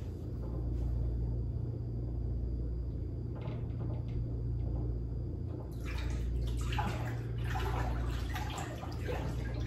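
Water sloshing and splashing in a tank as hands move through it, starting about six seconds in, over a steady low hum.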